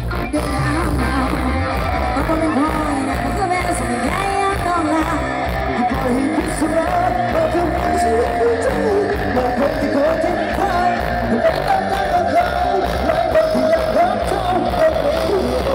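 Loud Thai parade music with singing and heavy bass blaring from a rot hae sound truck's tall loudspeaker stack.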